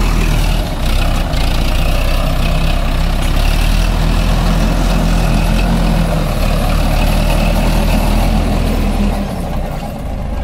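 Sonalika tractor's diesel engine running steadily with a low, even drone, easing off slightly near the end.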